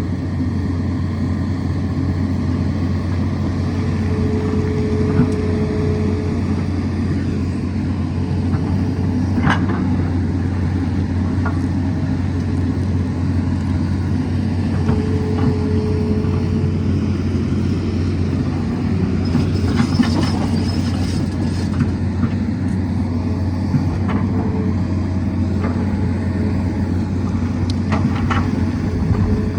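Tata Hitachi excavator's diesel engine running steadily, with a brief higher whine now and then and a few sharp knocks.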